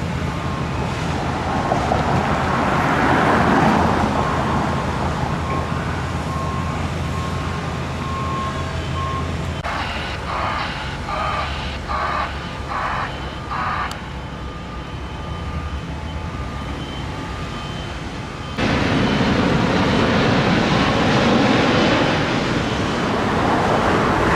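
Road traffic noise over a steady low engine hum. For a few seconds partway through there is a pulsing sound about twice a second. Near the end the traffic noise turns abruptly louder and fuller.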